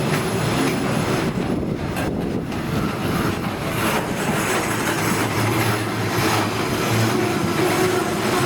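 A repair train hauled by a 2TE116U diesel locomotive rolling past, with a steady rumble of wheels on rail and some faint wheel squeal.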